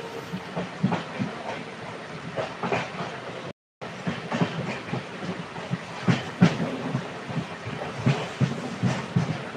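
Train running on the track, its wheels clattering over the rail joints in a steady run of clacks over a rumble. The sound drops out completely for a moment about a third of the way in.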